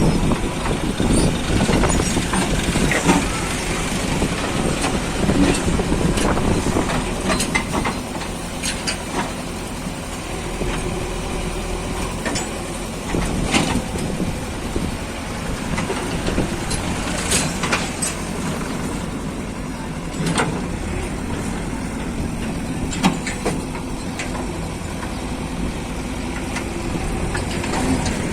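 JCB 3DX backhoe loader's diesel engine running steadily under work, a little louder for the first ten seconds or so before settling, with sharp knocks now and then.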